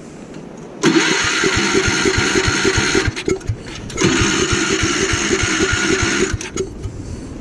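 Gravely Commercial 12 snow blower engine being cranked over twice, each time for about two seconds, with a regular chugging beat, and not catching. The owner takes it for a fuel problem.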